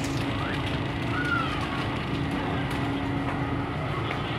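Steady rumble and hum of a passenger ferry's machinery, heard on board.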